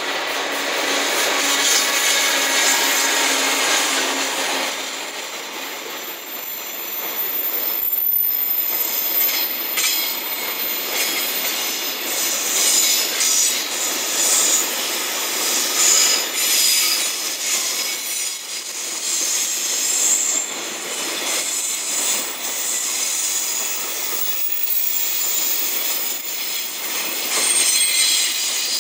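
JR Freight EF210 electric locomotive passing, followed by a long train of container wagons rolling by. Steady rumble of steel wheels on rail, with repeated clacks over rail joints and a high-pitched wheel squeal. A low steady hum is heard in the first few seconds, as the locomotive goes by.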